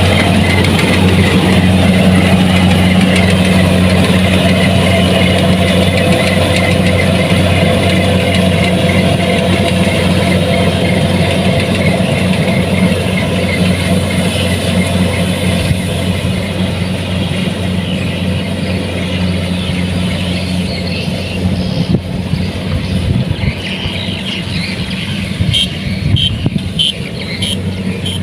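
Kubota DC-70 Plus rice combine harvester's engine running steadily. It grows gradually quieter over the second half, with a few sharp clicks near the end.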